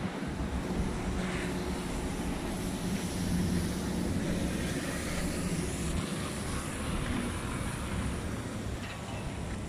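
City bus engine running close by with a steady low hum, over street noise.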